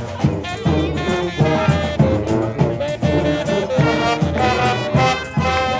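Street brass band playing: trombones, trumpets and other horns holding sustained notes over a steady beat of drum strikes.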